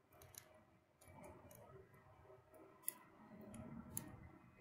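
Small fire of twigs and branches crackling faintly in a metal grill tray, with a few sharp pops, the loudest about three and four seconds in.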